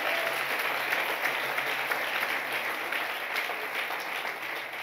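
Congregation applauding in response to a call to praise God, many hands clapping at once, the clapping dying away near the end.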